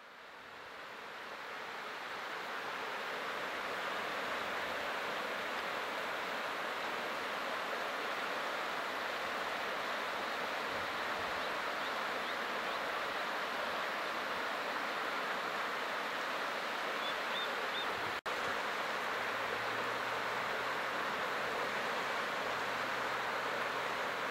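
Flood Geyser's boiling pool surging in eruption preplay: a steady rushing of water that fades in over the first couple of seconds. The sound drops out for an instant about 18 seconds in.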